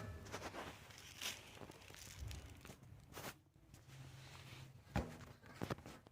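Faint rustling and handling noise, with a few light knocks, as the gas heater's controller is wrapped in packing material.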